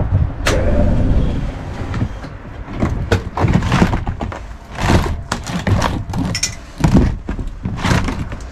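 Irregular knocks, clatters and scrapes of a ladder and plexiglass greenhouse roof panels being handled and worked loose, over a steady low rumble. A sharp knock comes about half a second in, then a dense run of knocks through the second half.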